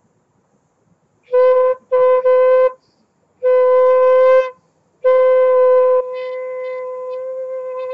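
Quena (South American notched end-blown flute) played with no fingers on the holes, sounding the same breathy note in about four separate blows of a second or less each. About six seconds in the last blow drops to a softer, slightly wavering held tone. This is a single-note diaphragm-breathing exercise.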